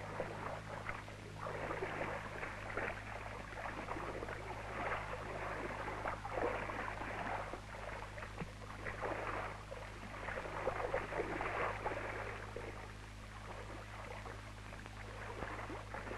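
Sheep splashing and churning in a dip bath as they are lowered in and pushed under the wash, an irregular sloshing that swells and fades, over a steady low hum.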